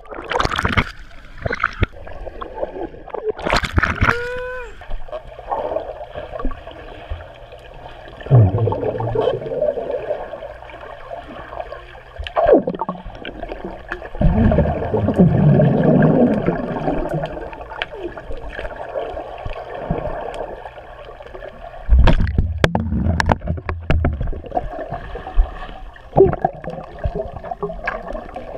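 Swimming pool water heard from underwater: gurgling and bubbling as swimmers dive and move through the water, with a plunge of bubbles right at the start. A brief muffled voice sounds about four seconds in.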